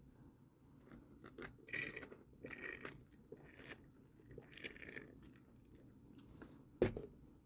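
Faint, close mouth sounds of a person sipping a drink through a straw under a face mask: a few short sips with small clicks between them. One sharper click near the end.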